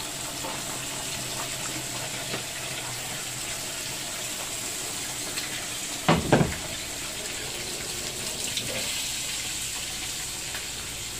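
Vinegar pouring in a stream into a pot of chicken livers and gizzards, splashing into the cooking liquid, with a single loud knock about six seconds in.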